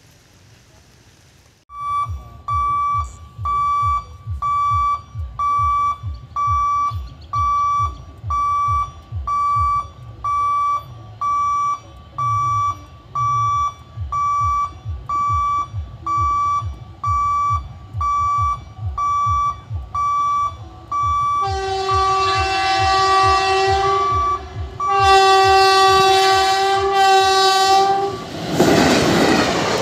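Level-crossing warning bell beeping about once a second. Then a WAP-4 electric locomotive sounds two long horn blasts as it approaches, and near the end the train's rumble and rushing noise sweep in as it reaches the crossing.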